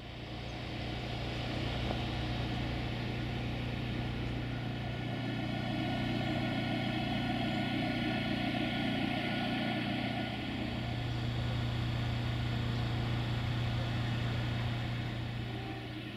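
Diesel engine running steadily, a constant low hum with overtones. It fades in over the first couple of seconds and eases off near the end.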